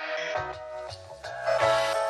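Background music: a track of sustained chords over a bass line that changes notes, with light beats.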